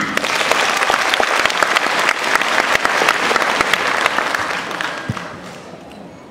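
Audience applauding, many hands clapping together, the applause dying away over the last second or so.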